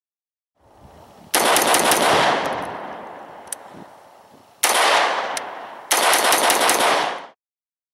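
An AR-15 rifle in 5.56 fitted with a Battlecomp muzzle brake/compensator firing in rapid strings of shots. There are three quick strings: one about a second in, one past halfway and one near the end. The first two ring out as they fade, and the last cuts off abruptly.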